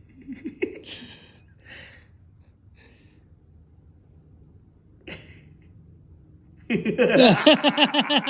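A few short breathy voice sounds and a brief knock while a Jenga block is eased out, then loud laughter bursts out near the end.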